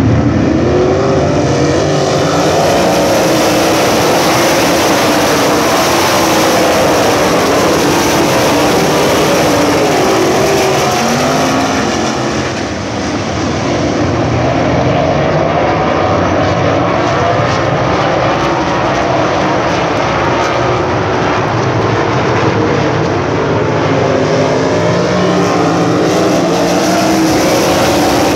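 A pack of USAC Silver Crown open-wheel race cars running around the dirt oval, many engines at once with pitches rising and falling as drivers get on and off the throttle. The sound dips briefly about halfway through, then builds again as the field comes back around.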